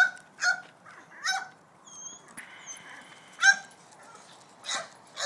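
Young kelpie puppy giving short, high-pitched yaps, about six in all, with a lull of about two seconds in the middle.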